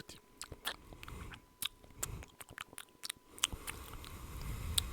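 Close-miked ASMR mouth sounds: quick, irregular wet clicks and smacks of the tongue and lips, with breathy air between them.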